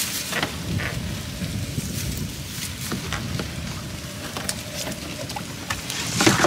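Water splashing and pattering as a net fish trap is hauled up through the water hyacinth into a small boat, with small knocks on the hull, louder near the end as the trap comes up.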